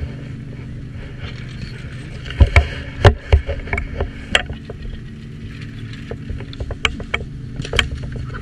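Chairlift machinery running at the loading station with a steady low hum. Over it come a series of sharp clacks and knocks, loudest between about two and a half and four and a half seconds in, with a few more near the end.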